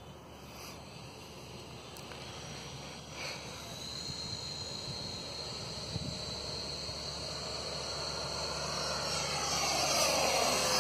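Radio-controlled Viper model jet in flight: its engine gives a high, steady whine that grows louder over the last few seconds as the jet comes closer.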